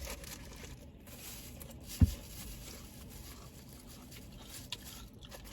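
A single dull thump about two seconds in, over faint low background noise.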